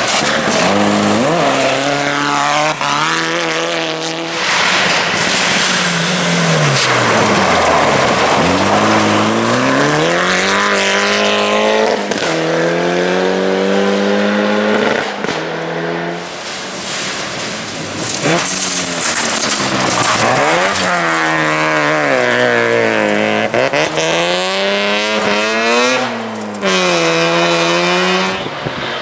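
Classic rally car engines revving hard at full throttle, their pitch climbing and then dropping sharply at each gear change, over and over, with loud tyre and road noise.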